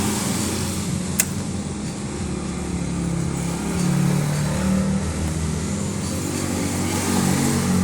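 Car engine idling steadily, with a single sharp click about a second in.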